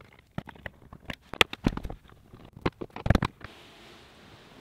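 Scattered sharp clicks and knocks from handling an RV bed's lift platform and its gas struts while the struts are being fitted, with a heavier knock about three seconds in.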